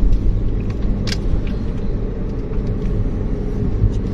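Car driving on a paved mountain road: a steady low rumble of engine and tyres, with a short click about a second in.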